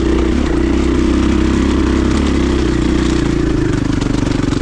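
KTM 500 EXC single-cylinder four-stroke dirt bike engine running steadily under throttle on a rough trail. A little over three seconds in, the revs drop and the note turns into a slower, pulsing beat.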